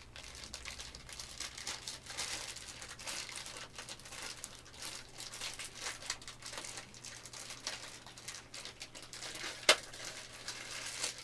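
Clear plastic packaging bag crinkling and rustling as it is handled and opened, with one sharp knock near the end.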